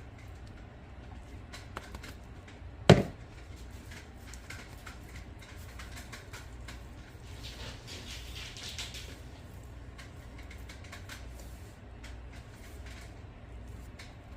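Tortillas frying in hot bacon grease in a pan: scattered crackles and pops, with a louder stretch of hissing sizzle about 8 s in, over a steady low hum. A single sharp, loud knock comes about 3 s in.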